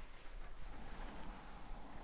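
Steady rain.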